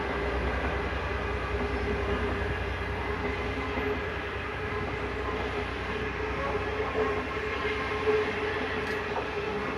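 Indian Pacific's long rake of stainless-steel passenger carriages rolling past on the rails: a steady rumble of wheels on track, with a steady tone held above it.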